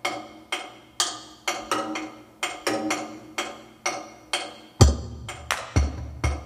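Music for a dance routine: a rhythm of sharp, short ringing notes about two a second, with two heavy, deep drum hits a second apart near the end.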